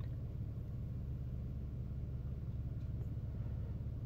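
A steady low background rumble with no speech.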